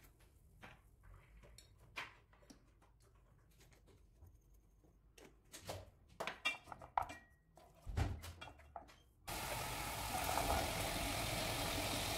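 Soft clicks and taps of ingredients and a utensil in a cooking pot, with a cluster of louder clatters about six to seven seconds in. About nine seconds in, a steady rushing noise starts abruptly and becomes the loudest sound.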